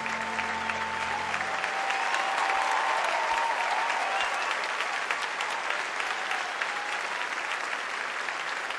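Audience applauding steadily, with the last held notes of the music ending about a second and a half in.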